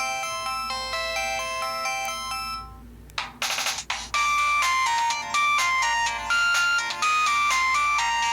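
Pantech C120 cell phone playing polyphonic ringtones through its small speaker, with a somewhat distorted sound. One melody of stepped notes fades out a little over two seconds in; a short noisy burst follows, and a new, louder ringtone melody starts about four seconds in.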